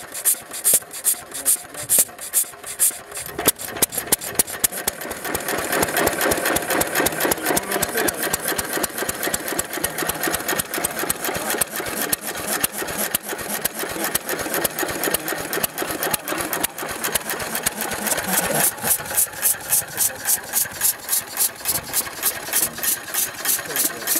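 Antique hopper-cooled single-cylinder stationary engine with twin flywheels running with a fast, even beat, running well. A louder mixed noise joins about three seconds in and cuts off abruptly a few seconds before the end.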